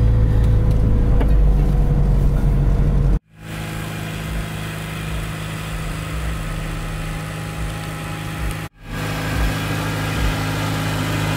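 Honda Civic engine and low road rumble heard during a test drive, cut off abruptly about three seconds in. After the cut the engine runs at a steady, quieter hum, broken by a second brief cut near the end.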